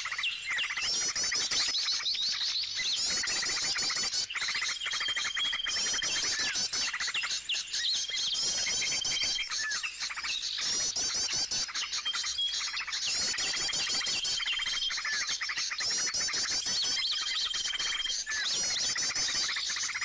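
Many small forest birds chirping and calling together in a dense, continuous chorus, with a steady high whistle held for about a second that comes back every two to three seconds.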